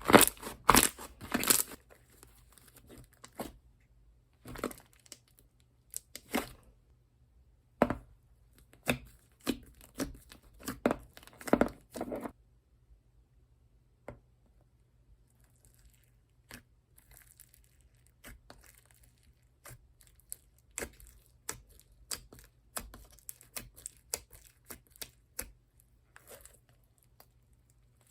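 Slime being squished, stretched and poked by hand, making quick sticky clicks, pops and crackles. The pops are loud and dense for the first dozen seconds, stop briefly, then come back fainter and more scattered.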